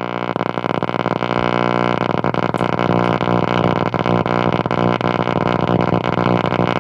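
Music: a steady drone at one low pitch, thick with overtones, with a rapid fluttering, crackling texture running through it.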